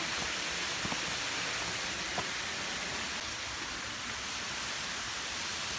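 Steady, even rush of falling water with no breaks, and a couple of faint ticks.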